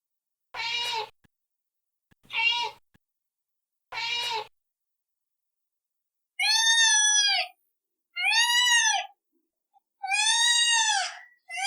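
Domestic cats meowing: three short meows about a second and a half apart, then, after a pause, a different, higher-pitched meow repeated three times, each call longer and rising then falling in pitch.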